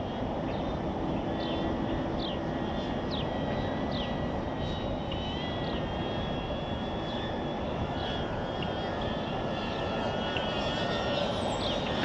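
DJI Avata ducted-propeller FPV drone flying some way off, a faint whine that wavers in pitch with the throttle, over a steady rushing noise.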